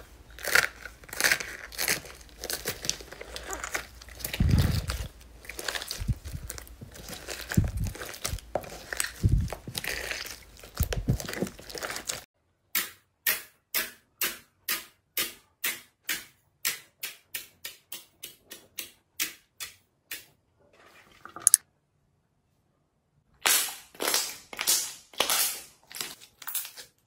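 Slime being pressed and folded by hand. First blue slime studded with foam beads gives dense crackling and popping, with a few soft low thumps. Then glossy red jelly slime is pressed in evenly spaced pops, about three a second, that grow fainter, followed by a short gap and a few more pops near the end.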